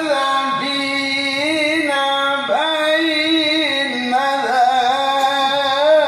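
A male qari's voice reciting the Qur'an in the melodic tilawah style: one long unbroken phrase held on drawn-out vowels, with wavering, gliding ornaments.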